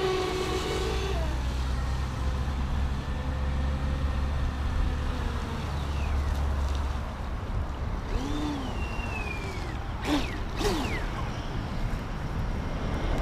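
Electric RC speedboat's brushless motor whining in bursts, its pitch rising and falling as the throttle changes, over a steady low rumble of wind on the microphone.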